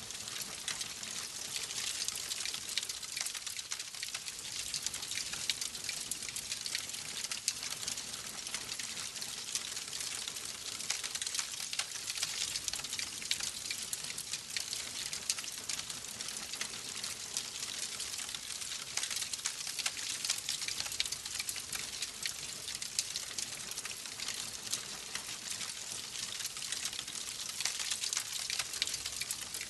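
Wood fire crackling steadily: a dense run of small pops and snaps over a soft hiss.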